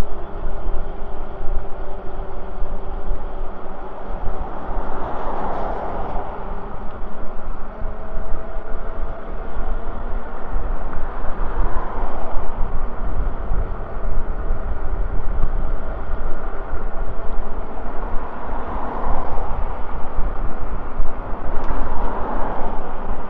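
Riding on an e-bike: wind buffeting the microphone with a steady low rumble, over tyre noise on pavement and a faint steady hum from the bike's electric motor. The rushing noise swells four times.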